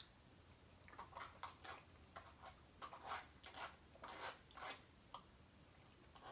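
Faint, irregular clicks and scrapes of a plastic fork working in a small plastic takeout bowl, over quiet room tone.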